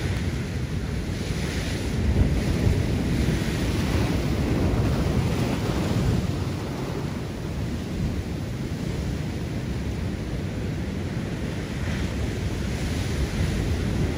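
Rough sea surf breaking and washing over rocks, with wind buffeting the microphone in a steady low rumble. The surf swells to a louder rush about two seconds in and again near the end.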